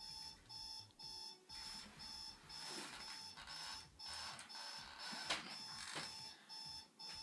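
An iPod alarm beeping in an even pattern, about two beeps a second, with a few soft rustles in between.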